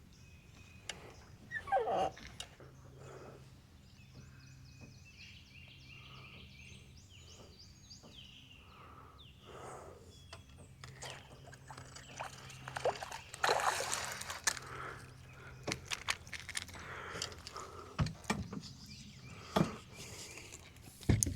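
Repeated short animal calls over an outdoor background, with scattered knocks and clicks, and a louder rush of noise a little past the middle.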